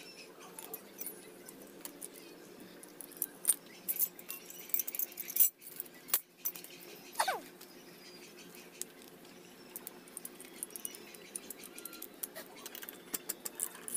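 Hand tools and loose bolts clinking and clattering as they are picked up and set down on the ground during motorcycle swing-arm removal, with a few sharper knocks between about three and six seconds in. A short falling squeal sounds about seven seconds in.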